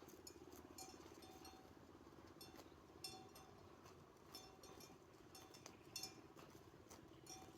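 Faint, irregular clinking of small bells on grazing sheep, several short rings a second, over a steady low hum.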